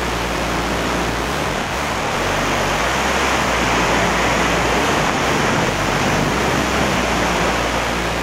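Steady rush of wind over the camera's microphone while flying under a parachute canopy, an even hiss with a low rumble.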